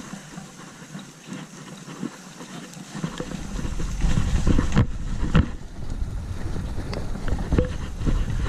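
Mountain bike rolling down a dirt trail: tyre and rattle noise with wind rumbling on the microphone, getting louder about three seconds in, and a few sharp knocks as the bike goes over bumps.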